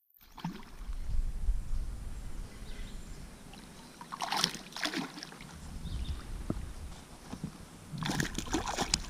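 Water sloshing and splashing around a small rowboat or kayak, over a low wind rumble on the microphone. There are short bursts of splashing about four seconds in and again near the end.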